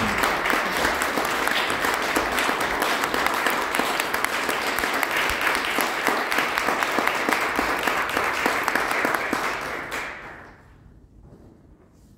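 Audience applauding, a dense steady clapping that dies away about ten seconds in.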